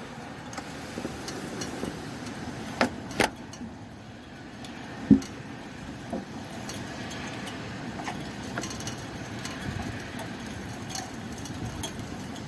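Steady rain hiss with a few handling noises: two sharp clicks about three seconds in and a louder knock about five seconds in.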